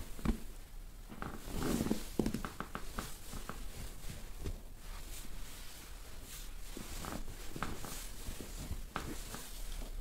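Massage through clothing: hands pressing and rubbing over shorts and bed sheets, giving irregular fabric rustling and rubbing with a few soft knocks near the start.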